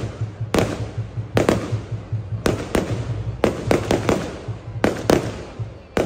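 Fireworks going off: a string of sharp bangs at irregular intervals, about two a second, each dying away in a short echo.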